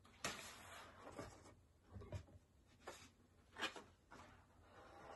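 Sheets of watercolor paper rustling and sliding against each other as they are handled: a longer rustle near the start, then several short ones.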